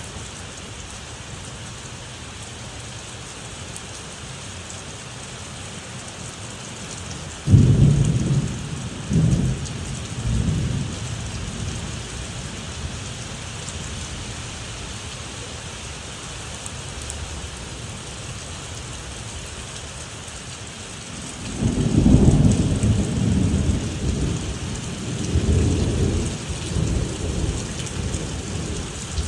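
Thunderstorm: steady rain hissing throughout, with two thunder rolls. A sudden clap about a quarter of the way in rumbles on for a few seconds, and a longer rolling rumble begins about two-thirds of the way through and keeps going to the end.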